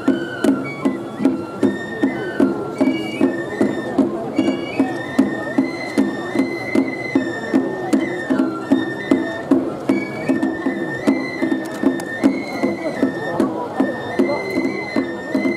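Japanese festival music of the shagiri kind: a bamboo flute plays a high melody in held, stepping notes over a steady drum beat of about two to three strokes a second.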